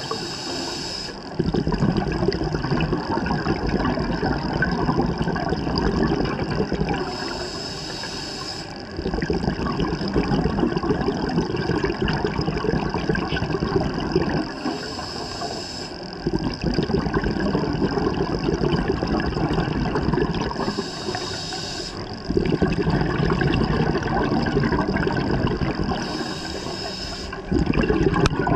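Scuba diver breathing through a regulator underwater. Each breath starts with a short hiss of inhaled air, followed by about five seconds of loud, low bubbling as the exhaled air bubbles out. The cycle repeats about every six seconds, five breaths in all.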